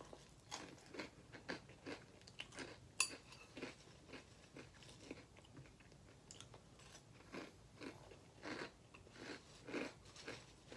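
A person chewing a mouthful of Apple Jacks cereal with a mouth close to the microphone: soft, irregular crunches, one or two a second. There is a single sharp click about three seconds in.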